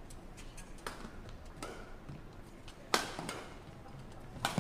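Badminton rackets striking a shuttlecock during a rally: four sharp hits roughly one to one and a half seconds apart, the loudest about three seconds in, with lighter taps between them.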